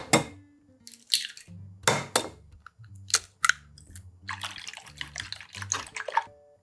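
Eggs tapped and cracked against a ceramic bowl, several sharp knocks and shells pulled apart as the eggs drop in. From about four seconds in, wooden chopsticks beat the eggs in the bowl: a quick run of clicks lasting about two seconds.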